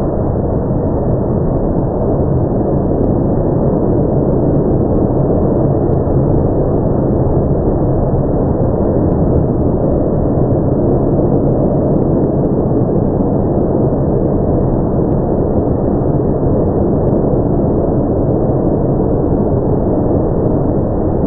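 Automatic tunnel car wash running: spinning cloth brushes and water spray making a steady rushing noise.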